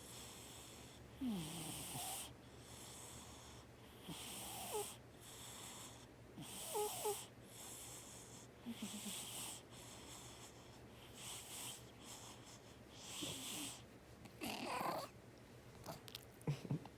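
Sleeping cat snoring: wheezy, hissy breaths about every second and a half, some with a small squeaky snort, and a few short clicks near the end.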